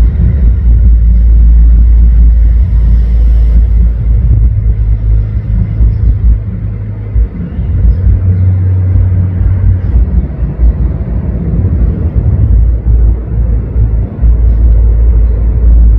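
Amplified band music from a neighbouring church, heard from the house next door as a loud, heavy low rumble of bass guitar and rapid drumming. The low notes shift now and then, and little of the higher parts comes through.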